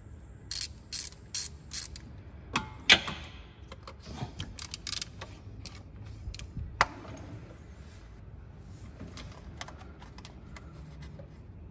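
Hand ratchet clicking in short runs as it undoes the small bolts holding the engine's lower plastic timing-belt cover. There is a single sharp knock with a brief ring about three seconds in, the loudest sound, and it goes quieter for the last few seconds.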